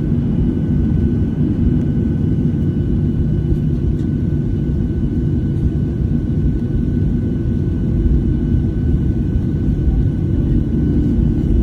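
Airliner engines and cabin rumble heard from inside the passenger cabin while the plane taxis: a steady deep rumble with a faint, steady high whine above it.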